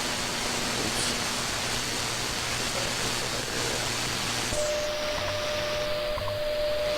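Shortwave AM radio reception of the 5,000 kHz time-signal station through a software-defined radio: steady static hiss with a faint tick about a second in. About four and a half seconds in, a steady tone comes in and the hiss loses its top end as the receive bandwidth is narrowed.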